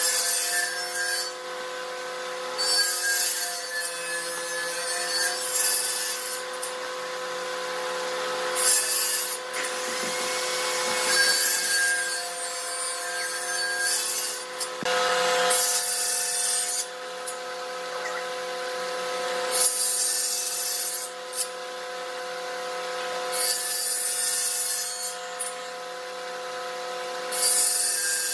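Table saw running with a steady hum, its spinning blade crosscutting small wooden slats at an angle. Each cut is a short burst of high, hissing rasp, repeating about every three to four seconds.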